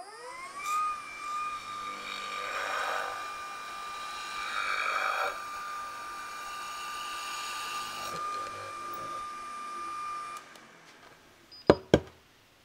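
Makita router on a CNC machine spinning up with a rising whine and then running at a steady, slowed-down speed while a small drill bit bores into a brass bar, with two louder, rougher stretches as the bit cuts. The whine stops about ten seconds in, and two sharp clicks follow near the end.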